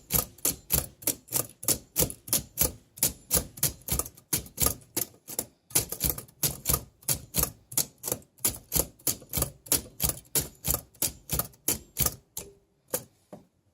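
Keys of a vintage LC Smith & Corona typewriter being struck in a steady run, about four sharp clacks a second. There is a short break about halfway through, and the typing stops near the end.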